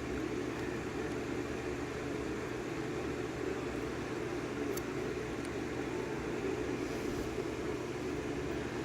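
Steady low background hum, like a fan or air conditioner running, with no distinct handling sounds apart from one faint click near the middle.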